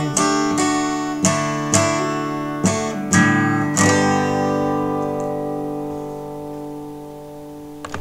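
Taylor acoustic guitar strumming the closing chords of a song: several strums about half a second apart, then a final chord left to ring and fade away over the last few seconds. A small click near the end.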